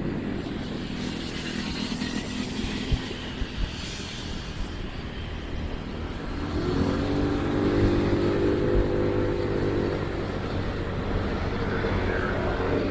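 Engine and road noise from riding in motorcycle traffic: a hiss of rushing air and passing vehicles in the first few seconds, then a steady engine hum that grows louder about halfway through.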